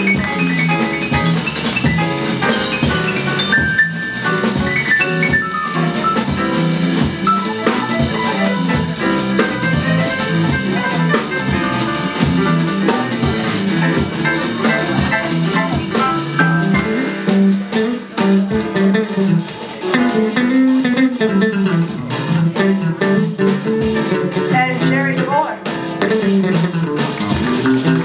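Live band music led by guitar over a drum kit, with a jazz feel, and no words sung.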